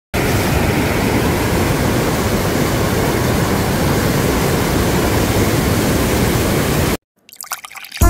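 Mountain stream water rushing and cascading over boulders, a steady loud rush of whitewater. It cuts off suddenly about seven seconds in.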